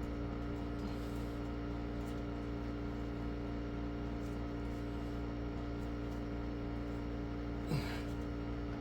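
A steady, unchanging hum with many even tones. A short scraping sound comes near the end.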